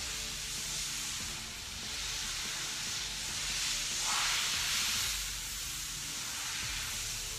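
A hiss of rushing air that swells and fades, loudest about four seconds in, over a faint low hum.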